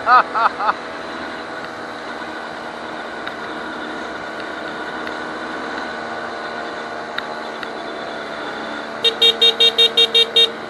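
Small motorcycle engine running steadily at low road speed, with some wind. A few short rising-and-falling tones sound in the first second, and from about nine seconds in the horn is beeped rapidly, around a dozen short toots at about six a second.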